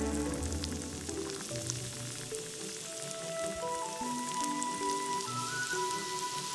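Oil sizzling and crackling around whole bamboo shoots frying on the flat face of a heated anvil, as chopped chillies drop into the oil. Background music plays a slow melody over it.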